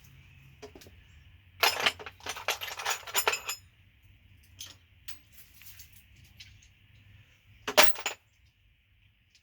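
Metal hand tools clinking and rattling against each other, as when sockets and wrenches are handled: a quick run of clinks about two seconds in and one sharp clank near the end.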